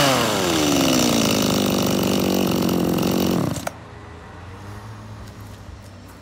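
Zenoah HT601 Pro-1 hedge trimmer's small two-stroke engine coming off full throttle, its revs falling to idle. It idles for about two seconds, then cuts off suddenly with a click about three and a half seconds in.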